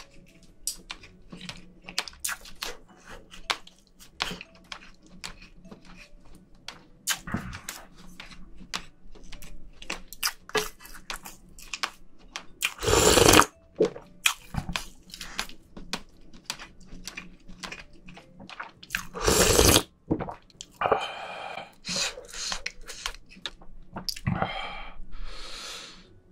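Close-miked eating sounds: wet chewing and lip-smacking of seafood stew, a quick run of small sticky clicks, with two loud slurps, one about halfway through and one a few seconds later.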